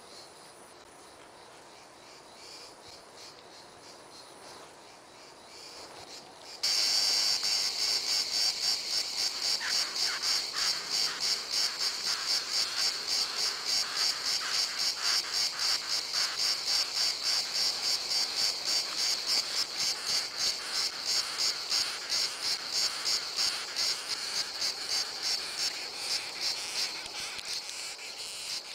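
Faint background hiss, then about six seconds in a longhorn beetle's stridulation starts abruptly. It is a high-pitched rasping chirp repeated about twice a second, each chirp a rapid run of fine clicks, made by rubbing the thorax segments together.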